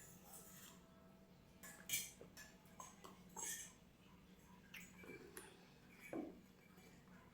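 Quiet eating sounds: a few short, scattered clicks and clinks of cutlery against a plate, with soft mouth noises between them.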